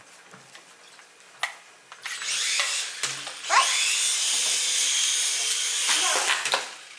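Small electric rotor motors of a 3.5-channel remote-control Black Hawk toy helicopter whining. They rise briefly about two seconds in, spin up again about three and a half seconds in to a steady high whine, and wind down shortly before the end.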